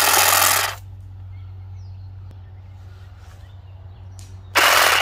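Saker cordless hedge trimmer's blades running in two short, loud bursts as they clip a pine branch: one dies away under a second in, and the other starts about four and a half seconds in.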